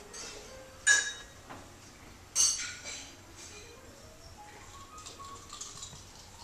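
Two sharp ringing clinks about a second and a half apart, followed by a faint series of single notes stepping upward in pitch.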